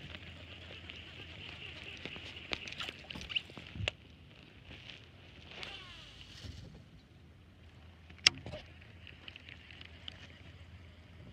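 Fishing rod and reel being handled and cast. There are scattered clicks and knocks in the first four seconds, a short whir about halfway through, and one sharp click about eight seconds in, over a light hiss of wind.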